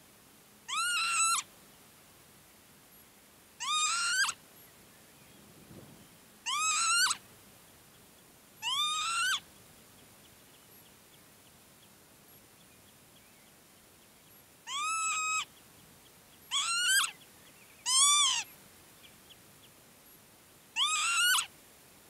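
Northern lapwing calling: eight short slurred calls, each rising then falling in pitch, spaced a couple of seconds apart with a longer pause around the middle.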